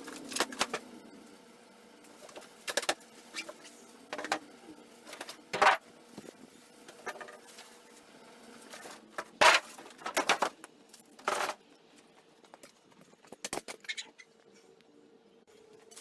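A boxed table saw stand and its packaging being opened and handled: a string of irregular short rustles, scrapes and knocks, the loudest in the middle of the stretch, over a faint steady hum.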